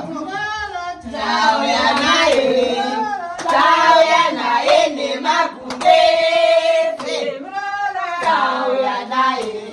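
A group of women singing together loudly, several voices overlapping, with long held notes and a few sharp handclaps.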